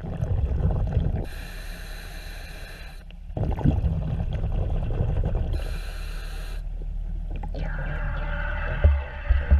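Scuba diver breathing through a regulator underwater: a hiss on each inhale alternating with rumbling exhaust bubbles on each exhale, about two and a half breaths. Two dull knocks near the end.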